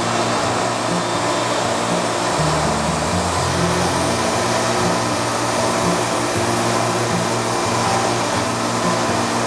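Background music with a stepping bass line over a constant machine noise, the steady running of a saw through the cut.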